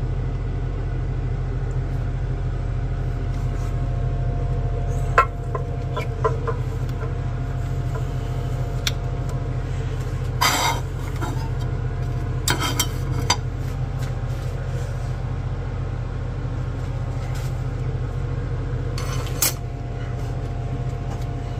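Scattered clinks and knocks of glassware being handled and set down on a workbench, over a steady low hum.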